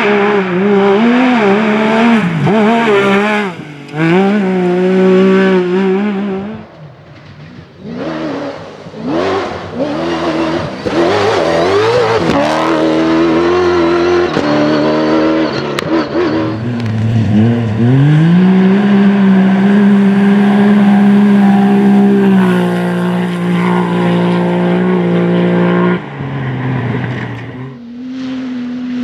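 Rally car engines at full throttle, revving up and dropping back through repeated gear changes, then holding one long high-revving note in the second half before it falls away and another car's engine comes in near the end.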